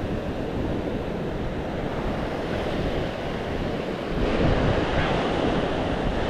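Ocean surf breaking, with wind buffeting the microphone; a wave swells louder about four seconds in.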